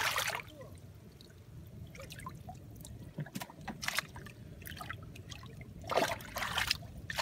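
Hands splashing and sloshing through shallow muddy water while feeling for fish: a few short splashes, with a longer run of splashing near the end.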